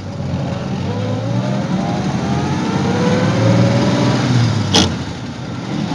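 A 1930 Willys Whippet's flathead straight-six engine pulls the car away, heard from inside the cabin, its pitch rising steadily for about four seconds as it accelerates. Near the end comes a short sharp clack, and the engine note drops.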